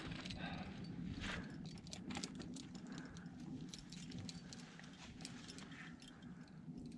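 Faint, irregular clicks, scuffs and small clinks of a climber scrambling over rock: shoes on stone and climbing gear knocking together.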